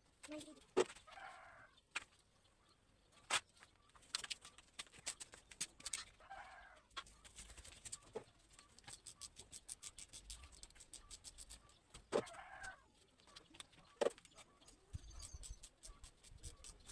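Sharp metallic clicks and taps of hand tools, with a run of quick, even clicks in the middle, as the old water pump is worked loose from a BMW M54 engine. Three short clucking calls from chickens come in the background.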